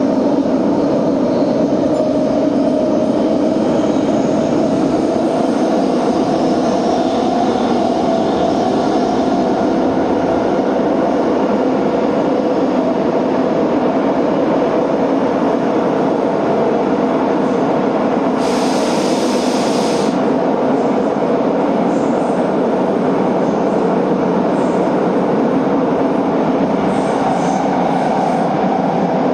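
Subway train running at speed through a tunnel, heard from inside the car: a steady, loud rumble of wheels and motors. Partway through there is a brief burst of high hiss lasting about a second and a half.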